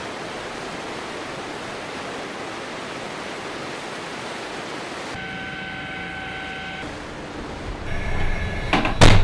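Steady rushing of churning sea water and wind past a warship under way for about five seconds. Then a steady humming tone, and a couple of loud knocks near the end.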